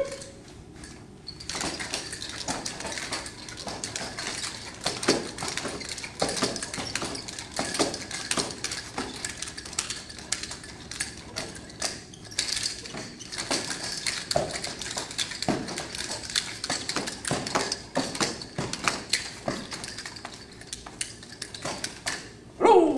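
Nunchaku being swung, spun and caught: a continuous rattle of the chain with quick metallic clinks and clacks of the sticks, and occasional louder knocks. A brief shout near the end.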